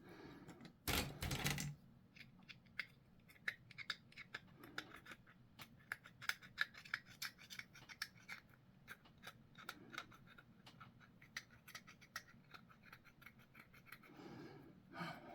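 Hobby sprue clippers snipping plastic model parts, with many small, irregular clicks of the cutters and plastic pieces being handled. A louder scraping rustle comes about a second in, and a shorter one near the end.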